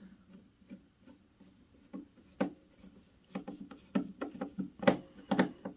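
Hands handling screws and parts of an electric heater's casing: irregular clicks and light knocks, sparse at first and coming thicker and louder in the second half.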